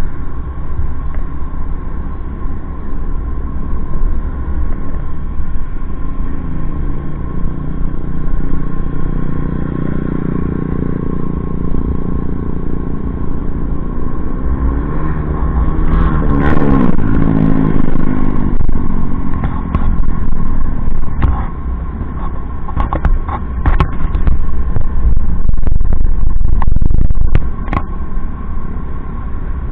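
Wind rumbling on the microphone of a camera mounted on a moving motorcycle, over engine and road noise. About halfway, a vehicle engine swells and its pitch shifts as it passes close by. Scattered sharp knocks and clatter follow near the end.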